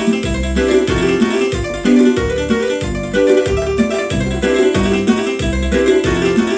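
Korg Pa700 arranger keyboard playing a lead melody over its own backing rhythm, with a bass note about twice a second and fast steady hi-hat-like ticks.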